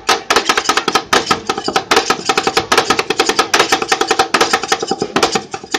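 Two metal spatulas rapidly chopping an ice cream mixture on the frozen steel plate of a Thai rolled ice cream (i-tim pad) stall: a fast, steady clatter of about ten strikes a second with a metallic ring.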